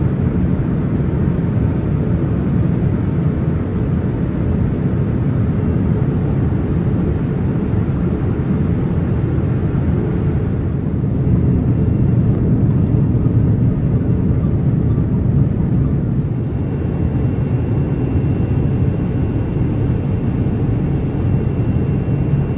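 Steady cabin noise of a Boeing 787 airliner in flight: a low rumble and rush of engines and airflow with no breaks, heard from inside the cabin by a window seat.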